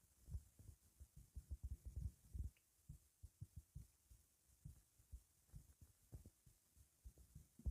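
Stomach gurgling and growling: faint, irregular low rumbles and pops, busiest in the first couple of seconds and sparser after that.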